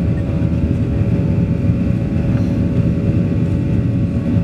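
Cabin noise of a Boeing 737-800 climbing after takeoff: the CFM56-7B turbofans and airflow make a steady, loud roar, heard from inside the cabin by the wing, with a few faint steady hum tones over it.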